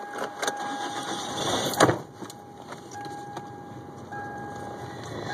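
Car engine idling with a steady high electronic tone running over it; the tone breaks off for about a second around a loud thump near two seconds in, then comes back.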